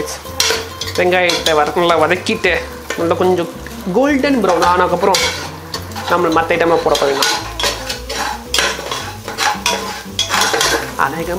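Spatula stirring and scraping chopped onions as they sizzle in ghee in an aluminium pressure cooker, with a singing voice over it.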